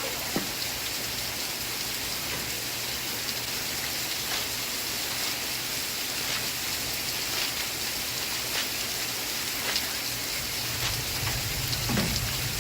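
Steady rain falling, an even hiss with scattered sharp ticks of single drops. A low hum comes in near the end.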